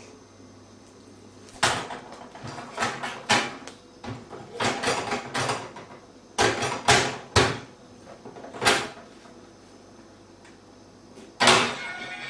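A run of sharp knocks and clatters, irregular and sometimes several in quick succession, with a louder bang near the end.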